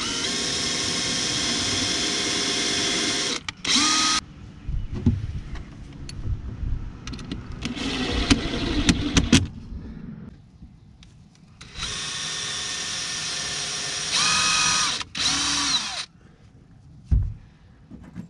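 Cordless drill running in several long bursts as it bores through a composite board into a wooden leg of a box frame. The motor's pitch falls as the trigger is let go at the end of a burst. One sharp knock comes near the end.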